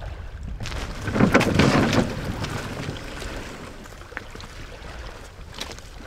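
Wooden rowboat being pushed down the stony shore into the sea: a loud scraping rush of the hull over stones and a log roller for about a second, then fainter noise with a few light knocks.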